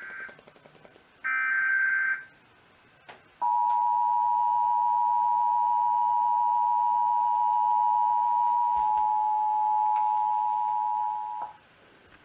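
Emergency Alert System Required Monthly Test. The end of one burst of warbling SAME data tones is followed by a second burst, then the two-tone EAS attention signal sounds steadily for about eight seconds and cuts off sharply near the end.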